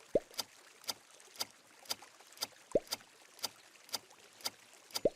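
Countdown-timer sound effect: a clock ticking steadily about twice a second, with a short low thump that rises in pitch at the start, midway and near the end.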